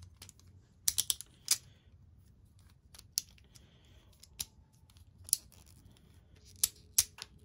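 Hard plastic parts of a Beyblade top clicking and snapping as they are twisted and fitted together by hand, with about ten sharp clicks: a quick cluster about a second in, scattered single ones, and a few close together near the end. The layer would not hold and is being re-seated.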